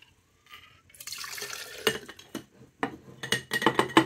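Coffee dye solution poured into a glass jar, then a metal spoon stirring it and clinking repeatedly against the glass.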